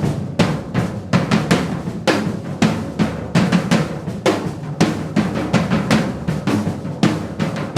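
Background music with a steady drum beat: repeated snare and bass drum hits.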